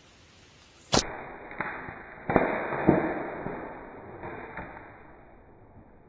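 A slingshot shot into tree foliage: a sharp snap about a second in, then a few seconds of crackling and rustling through leaves and branches with several knocks, fading away.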